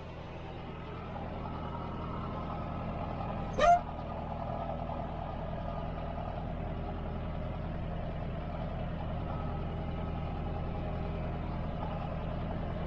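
John Deere tractor engine running steadily under field work, getting slightly louder over the first couple of seconds. About a third of the way in comes one brief, loud, rising chirp that ends in a sharp crack.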